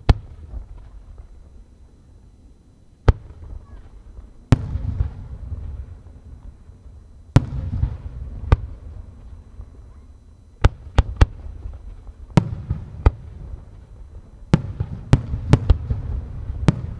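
Japanese aerial firework shells bursting one after another: about fourteen sharp booms at uneven spacing, each trailing off in a low rumble, coming faster in the second half.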